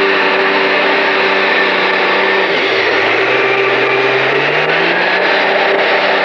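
Pulling tractor's engine running hard under load as it drags a sled. Its pitch drops sharply about two and a half seconds in, then climbs steadily back over the next two seconds.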